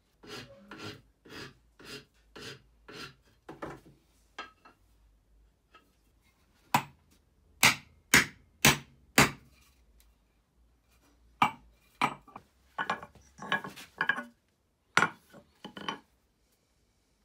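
Hand tools working a wooden ash hammer handle. First come about eight even scraping strokes, roughly two a second. Then, from about seven seconds in, there is a series of sharp wooden knocks and taps, some single and some in quick clusters.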